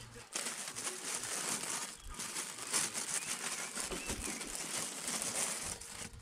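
Close crinkling and rustling of plastic being handled, a dense crackle that starts suddenly, breaks off briefly about two seconds in, and stops shortly before the end. A few faint high chirps sound over it around the middle.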